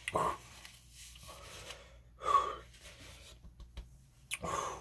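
A man's breath sounds while eating: three short, breathy gasps about two seconds apart, the middle one loudest.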